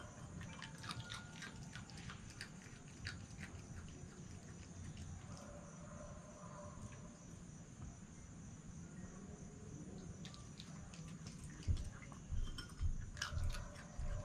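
Red fox chewing food from a dish: a run of small clicks and crunches in the first few seconds, then quieter. A few low thumps near the end.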